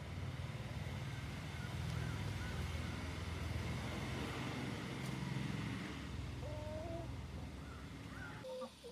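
Outdoor garden ambience: a steady low rumble with faint bird chirps over it and a short gliding call about six and a half seconds in; the rumble drops away suddenly near the end.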